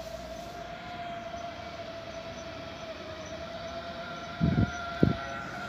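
Red DB S-Bahn electric multiple unit approaching, its traction drive giving a steady electric whine that drifts slightly lower in pitch as it comes in, over a low running rumble. Two short low thumps about four and a half and five seconds in.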